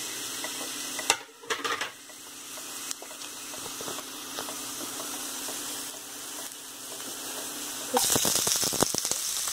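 Sliced garlic and dried red chillies sizzling in hot mustard oil in a kadai, a steady hiss with a couple of small clicks early on. About eight seconds in it jumps to a much louder, crackling sizzle as chopped onion goes into the hot oil.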